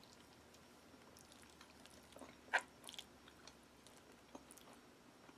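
A person chewing a sun-dried tomato from a ration pasta entrée: faint, scattered mouth clicks, with one sharper click about two and a half seconds in.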